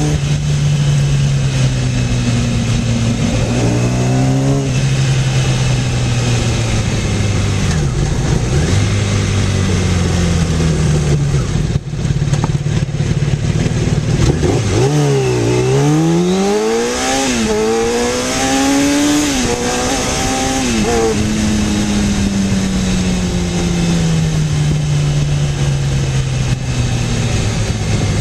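Honda Hurricane 1000 (CBR1000F) inline-four engine under way. It revs up and eases off early on, then accelerates hard about halfway through, its pitch climbing and dropping at two or three quick upshifts, before winding down slowly as the bike coasts. Steady wind rush lies under it.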